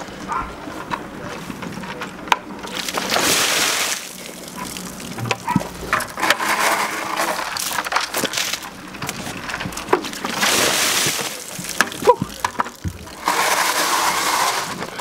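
Buckets of ice water dumped over a person, heard as several separate splashing rushes about a second or two long, with short clicks between them.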